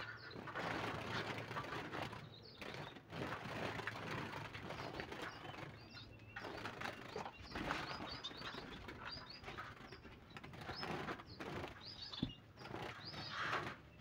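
Bengalese finches fluttering and flapping inside a wire cage as a hand reaches in to catch them, with the cage wire rattling and knocking. Short high chirps come through, more of them in the second half.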